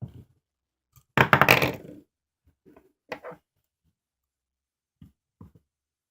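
Fidget spinner handled by hand: a few small knocks and clicks, with a louder rapid rattle lasting under a second about a second in.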